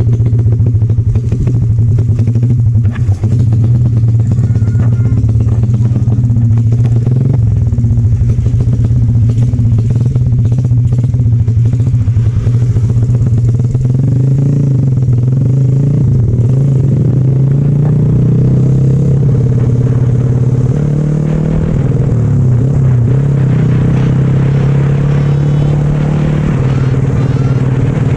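Motorcycle engine running while riding, its steady hum shifting up and down in pitch a few times as the speed changes.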